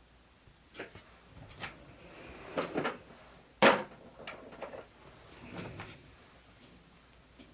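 Desk handling noises: a string of light taps, clicks and rustles, with one sharp knock near the middle, as stationery and planner supplies are picked up and set down.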